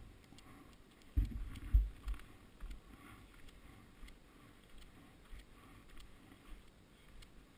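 Faint low thumps and knocks of an enduro motorcycle rolling slowly down a rocky dirt trail, three stronger jolts in the first two seconds, then smaller bumps about every half second.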